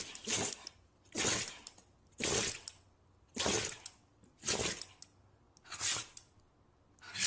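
An animal sneezing over and over, about seven short hissy sneezes roughly once a second.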